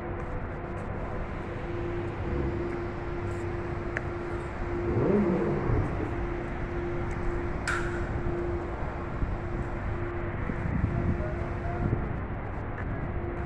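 Dry-dock shipyard ambience: a steady machinery drone carrying one constant hum, with a brief sharp hiss about eight seconds in.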